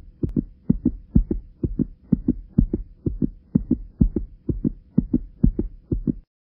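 Heartbeat sound effect: a fast, regular lub-dub of low thumps, about two beats a second, over a faint steady hum. It starts and stops abruptly.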